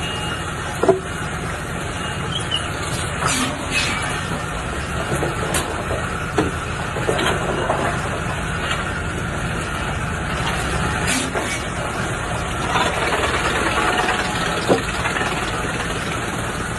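Wood chipping machine running with a steady mechanical drone, with scattered sharp knocks and cracks; the loudest comes about a second in.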